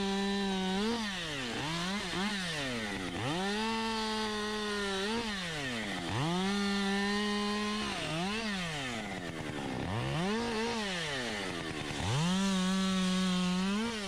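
Husqvarna 550 XP two-stroke chainsaw bucking a fallen birch into lengths. The engine is held at high revs for a second or two at a time, drops off sharply between cuts, and gets quick throttle blips in between.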